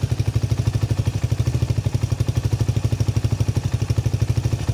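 Motorcycle idling steadily through a replica Akrapovic exhaust pipe, an even, rapid low pulse. It holds at about 89 to 90 decibels, stable and within the 99 dB limit.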